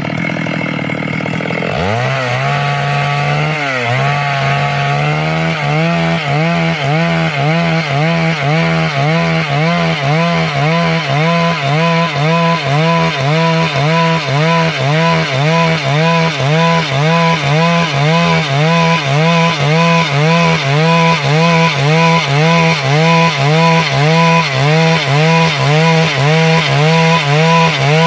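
Stihl MS 382 two-stroke chainsaw idling, then revving up about two seconds in and running at high revs through wood. Its pitch dips and recovers over and over in a steady rhythm as the chain is loaded in the cut.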